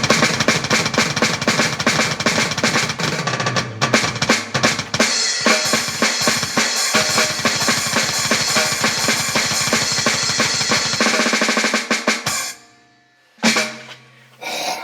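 Drum kit played hard, with fast rolls and rapid bass-drum and snare strokes, stopping about twelve seconds in. Two short low sounds follow near the end.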